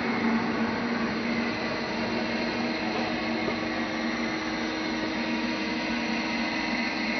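Steady whir of the International Space Station's cabin ventilation fans and equipment: an even rushing hiss with a low constant hum and a few fainter steady tones over it.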